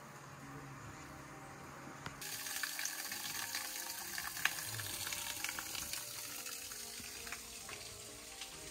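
Running water, a steady rushing and splashing hiss that starts abruptly about two seconds in.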